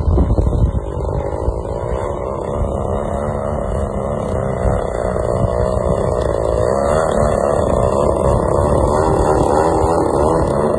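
Motor and propeller of a large RC aerobatic airplane running hard as it flies low, the pitch wavering with the throttle and the sound growing louder and rising near the end as the plane comes in and hangs nose-up in a hover. Wind rumbles on the microphone in the first second.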